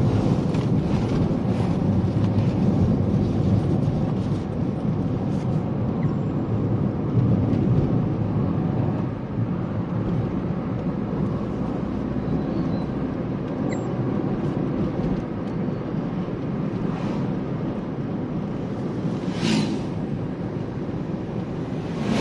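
Steady road and engine noise of a moving car, heard from inside the cabin, with a brief hiss near the end.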